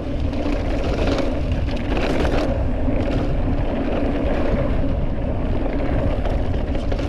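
Riding noise: wind rushing over the microphone, with a steady low drone underneath.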